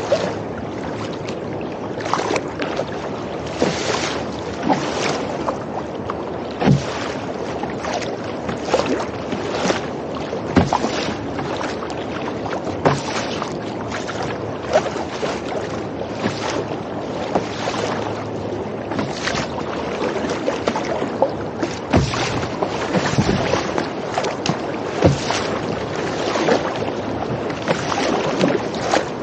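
Choppy water rushing and slapping against a sea kayak's composite hull as it is paddled, with irregular sharp splashes about every second or two. The chop is steep: a strong flood current running against the wind.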